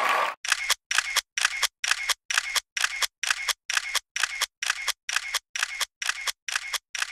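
A burst of applause cuts off at the very start. Then a camera-shutter sound effect repeats evenly, about two clicks a second, each with a faint low thud under it.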